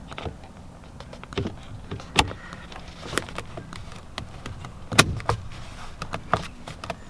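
A Holden Commodore VF driver's airbag module being pushed into a steering wheel hub: a series of sharp plastic clicks and knocks as it is seated and its spring clips catch, the loudest about two seconds in and about five seconds in.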